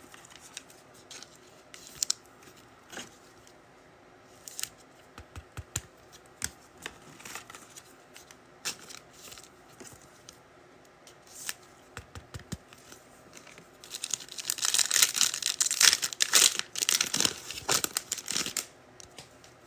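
Trading cards handled with scattered light clicks and slides, then a foil card pack torn open with several seconds of loud crinkling.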